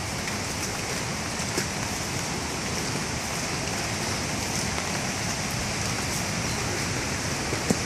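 Steady rain, an even hiss, with one sharp click near the end.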